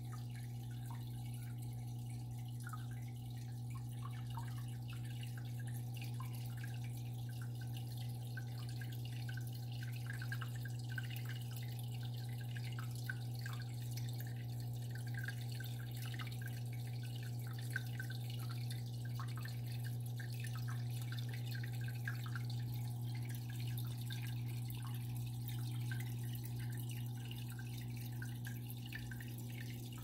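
Home aquarium water trickling and dripping steadily, many small splashes running on without a break, over a continuous low hum.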